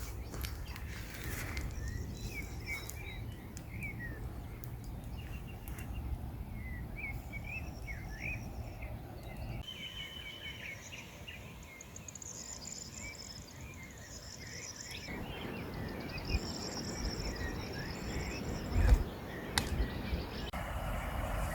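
Open-air ambience: small birds chirping repeatedly over a low rumble like wind. A few sharp knocks and a thump come near the end.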